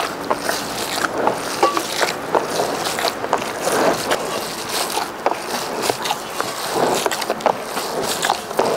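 Minced beef meatball mixture being kneaded by hand in a plastic basin: a continuous, irregular run of squishes and slaps.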